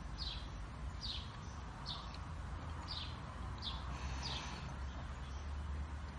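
A bird calling in the garden: a short, high note that falls in pitch, repeated about once a second, six times, then stopping about four and a half seconds in. A steady low rumble lies underneath.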